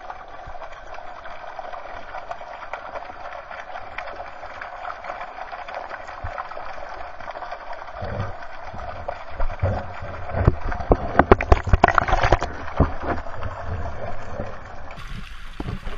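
Fountain water splashing and gurgling, heard up close through a GoPro's waterproof housing. About halfway in the splashing turns louder and more uneven, with sharp knocks and low thuds.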